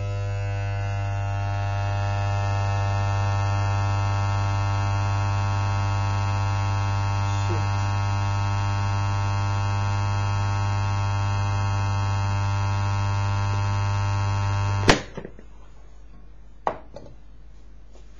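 Transformer humming loudly and steadily under heavy load as it drives current through an iron rod, heating it to glowing, melting heat. The hum cuts off suddenly with a sharp click about fifteen seconds in, followed by a couple of faint clicks.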